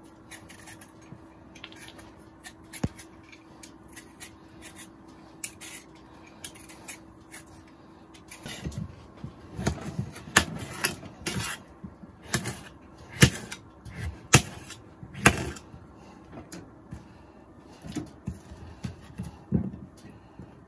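Cookware and utensils being handled and set down: scattered, irregular knocks and clatter, busiest in the middle and again near the end. Under them a faint steady hum runs for the first eight seconds or so, then stops.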